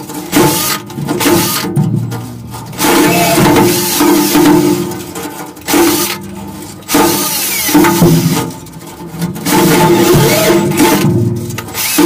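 Cordless drill spinning a wire cup brush against rusty steel bolt heads, scrubbing off the rust. It runs in repeated bursts of a second or a few seconds, with short pauses between them: a motor whine under the scratching of the wire bristles.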